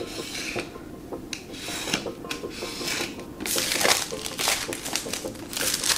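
A utility knife scraping through the plastic shrink-wrap on a smartphone box, then the film being peeled and torn off the box, louder from a little past halfway.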